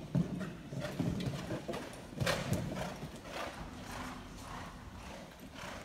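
Horse hoofbeats on the sand footing of a riding arena, a run of short, soft strikes, with one louder, rougher sound about two seconds in.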